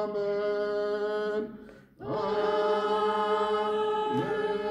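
Unaccompanied liturgical chant: long sung notes held at a steady pitch. A short break comes about one and a half seconds in, then another long note, with a slide up into a new note near the end.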